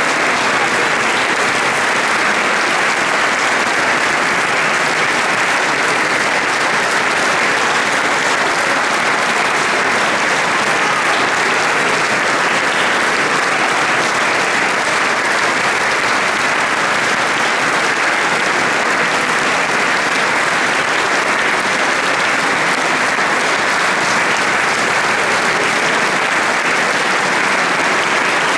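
Large audience applauding, a dense, steady clapping with no music.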